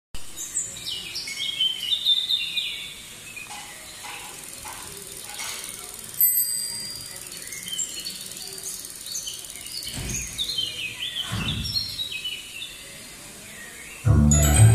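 Birdsong: clusters of short, high, falling chirps near the start and again in the second half. A bicycle bell rings once about six seconds in. Loud music with a heavy bass starts abruptly near the end.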